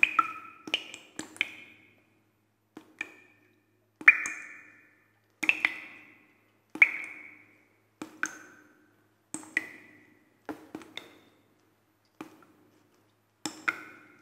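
Water drops plinking one at a time at an irregular pace, about one a second, each with a short ringing tone that dies away before the next.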